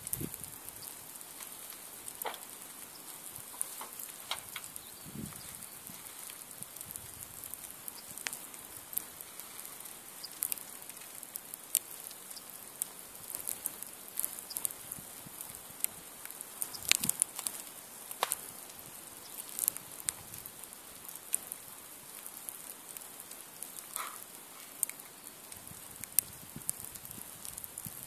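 Log campfire of two stacked logs (a nadya) burning, with scattered crackles and sharp pops over a steady high hiss; the loudest cluster of pops comes a little past halfway.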